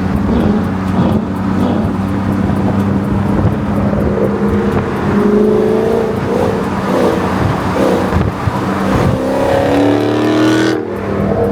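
Cars under way: a steady engine drone, with a Dodge Challenger Scat Pack's V8 exhaust loud and revving, rising in pitch about five seconds in and again near the end.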